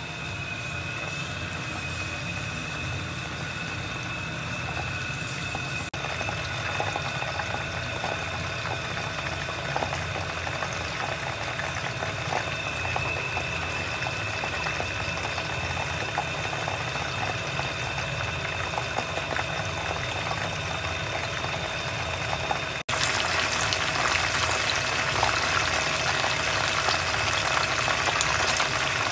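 Whole chicken deep-frying in hot oil in a pan: steady bubbling and sizzling, with a faint high whine behind it. About three-quarters of the way through it cuts to louder, more vigorous frying.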